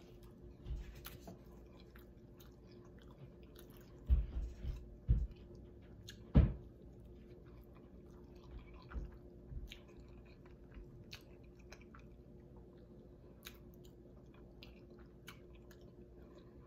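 Close-miked chewing and biting of soft street tacos, small wet mouth sounds throughout. A few much louder short knocks come about four to six and a half seconds in, over a faint steady hum.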